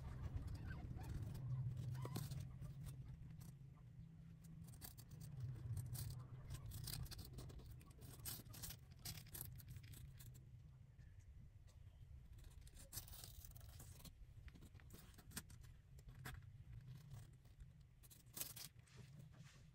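Faint scratching, rustling and small clicks from newborn kittens suckling and crawling over cloth against their nursing mother, over a low steady hum.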